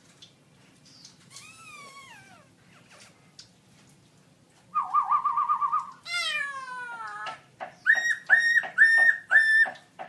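Black-throated laughingthrush singing. It gives a few falling whistles, then a quick rapid trill about halfway through, then a run of descending whistled notes. It ends with a series of loud, clear repeated whistles.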